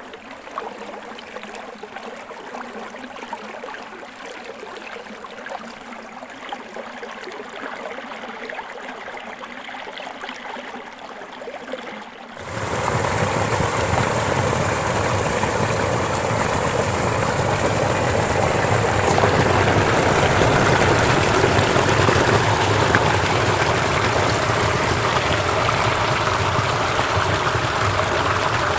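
Small forest stream running over rocks, a steady rush of water. About twelve seconds in, the sound abruptly becomes much louder and fuller, with more low rumble.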